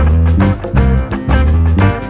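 Upbeat background music with guitar and a steady bass beat.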